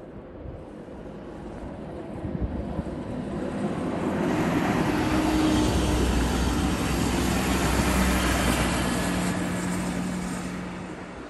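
A diesel multiple-unit train passing at speed: the noise swells, peaks and fades away, and its engine tone drops in pitch as it goes by.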